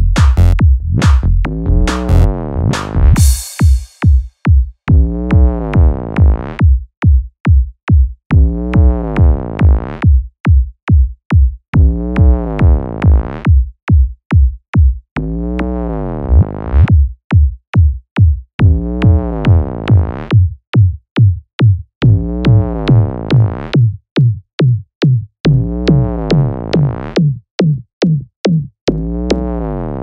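Psytrance track at 140 BPM: a steady four-on-the-floor kick drum, with a synth phrase that swells up and falls away once every bar. A short crash of noise comes about three seconds in.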